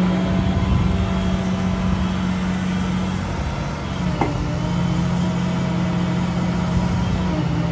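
Liebherr R954C HD Litronic crawler excavator running steadily with a thin whine over the engine tone as its boom and arm are lowered and raised. A brief knock comes a little after four seconds in.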